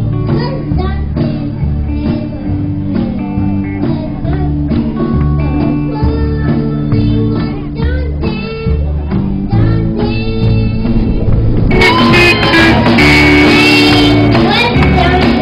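Live band playing a song, with a steady bass line, guitar and singing. About twelve seconds in, the sound turns louder and brighter.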